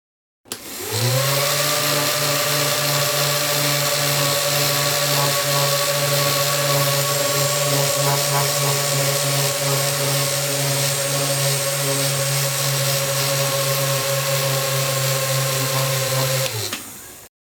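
Small DC motors of a homemade mini fan switched on: a whine that rises quickly as they spin up, runs steadily, then falls and stops as they are switched off near the end.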